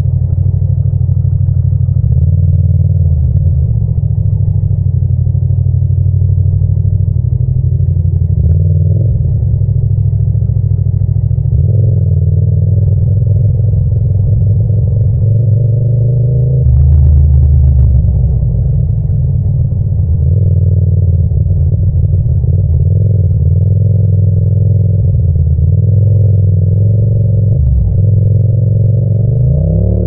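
Yamaha MT-07's parallel-twin engine running while riding in city traffic, its note stepping up and down with throttle and gear changes. Near the end it revs up with a rising note.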